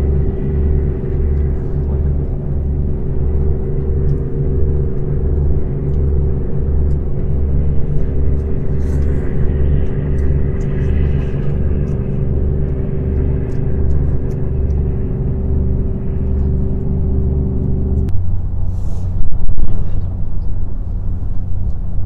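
An engine running steadily with a slow, even throb a little over once a second. It cuts off suddenly about eighteen seconds in, leaving a weaker, lower hum. Faint clicks and taps sound over it.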